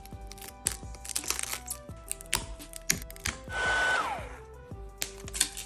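Background music with many sharp cracking and tapping sounds throughout, and a short rushing noise burst about three and a half seconds in, with a held tone that then falls in pitch.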